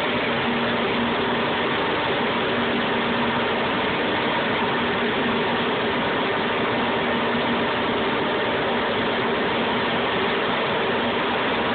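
VR 1005 TT CNC router running steadily over a panel, a constant machine noise with a low held hum and no breaks.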